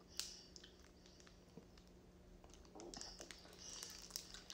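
Near silence: a faint low hum with a few soft clicks and taps from eating at a table.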